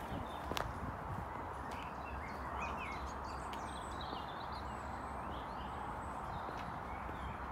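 Small birds chirping and singing repeatedly over a steady outdoor hiss, with a couple of footsteps on the tarmac path in the first second.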